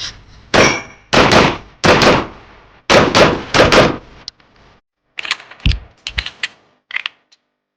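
Airsoft pistol shooting, six loud shots in about three seconds, each with a clanging ring, followed by a run of quieter clicks and knocks.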